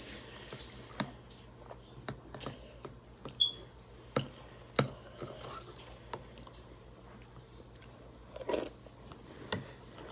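Crunchy cereal in milk being chewed close to a phone's microphone: irregular soft crunches and wet mouth clicks.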